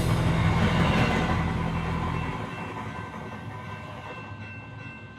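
A train rumbling along the tracks and fading steadily into the distance, with faint rhythmic clicks from the rails as it goes.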